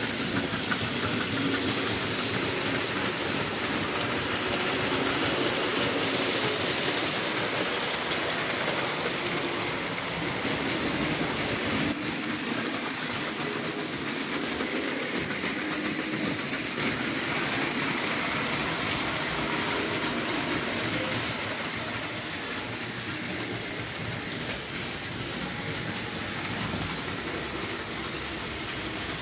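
Model trains running on a model railway layout: a steady rolling rumble and whir of wheels and motors on metal track.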